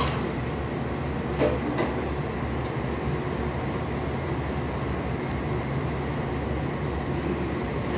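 Steady low machine hum, with a few soft clicks and rustles from food and flatbread being handled and torn, the sharpest about a second and a half in.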